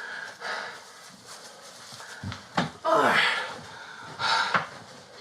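A person panting and wheezing under physical strain, with heavy breathy gasps; the loudest come about three seconds in and again near four and a half seconds.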